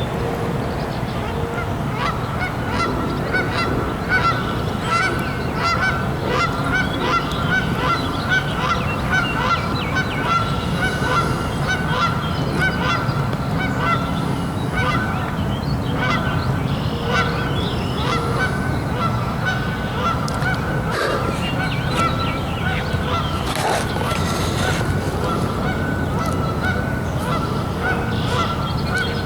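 A flock of geese honking over and over, short calls following one another throughout, over a steady low background rumble.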